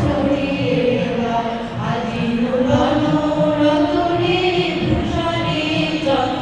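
A group of voices singing a slow song together, holding long notes and gliding between them.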